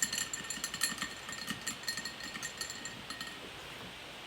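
Small craft-paint bottles clicking and clinking against each other and the tabletop as they are gathered and moved aside, a quick run of knocks with a short ring that stops a little after three seconds in.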